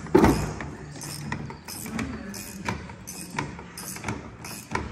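Hand tools clanking on the combine's steel: one heavy knock just after the start, then scattered lighter metallic clinks and taps through the rest.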